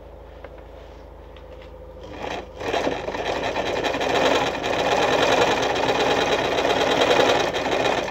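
Victoria Nuzstitch ZZ-570 front oscillating-shuttle sewing machine sewing a straight stitch: it starts about two and a half seconds in, runs steadily, and stops right at the end.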